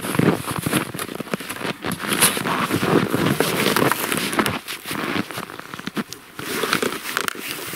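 Irregular crunching and rustling close to the microphone: footsteps in snow and stiff winter camouflage clothing moving, with knocks from handling a reel of fladry flag line.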